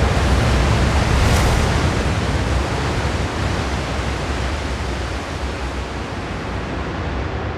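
Giant ocean wave breaking: a loud, steady rush of surf noise with a heavy low rumble, slowly fading toward the end.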